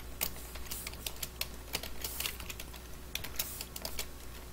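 Typing on a computer keyboard: a quick, irregular run of key clicks with short pauses between bursts.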